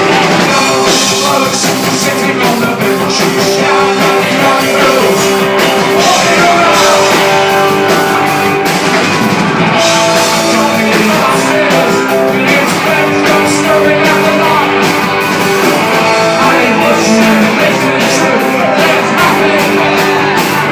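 Live punk rock band playing loud, with guitars, drums and some singing.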